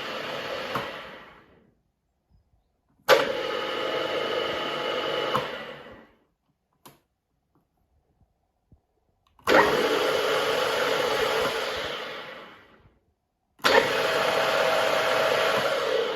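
HBM 40-H Profi drill-mill's oil-bathed geared head and three-phase motor running with steady gear tones. It is switched off about a second in and coasts to a stop, then starts suddenly three more times. Each run lasts a few seconds and spins down, apart from the last, which is still running at the end.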